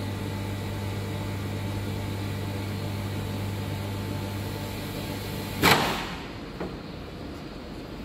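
Mini vacuum forming machine humming steadily. About five and a half seconds in, a short loud burst of noise sounds and the hum cuts off.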